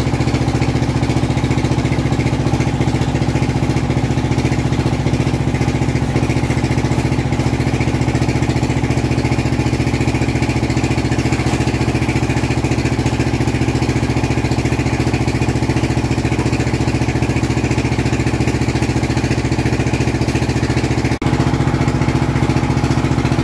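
Engine of a brick-making machine running steadily at constant speed, a continuous even hum. It drops out for an instant near the end.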